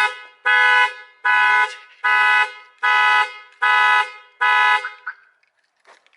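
Car alarm sounding the car's horn in rapid, evenly spaced honks, a little more than one a second, set off by opening the hood. The honking stops about five seconds in.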